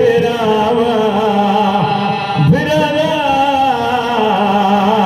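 A man chanting a melodic recitation, long held notes wavering in pitch, with a short break for breath about two and a half seconds in.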